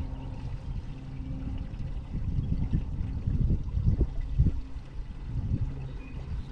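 Water sloshing and lapping against a small fishing boat's hull as it moves slowly, with the low steady hum of the boat's motor in the first couple of seconds.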